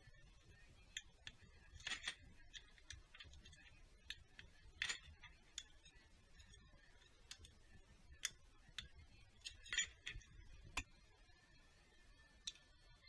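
Scattered small metallic clicks and taps as a screwdriver and metal fittings are worked on top of a diesel engine, over near silence. The clicks come at irregular intervals, the sharpest about two, five and ten seconds in.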